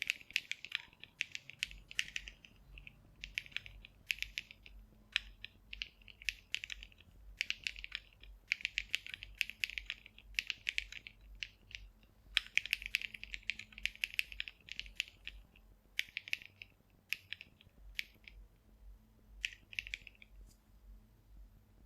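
Typing on a Monsgeek M1 mechanical keyboard fitted with thick Seasonal Gradient Color keycaps: quick runs of keystroke clacks in bursts with short pauses, stopping near the end.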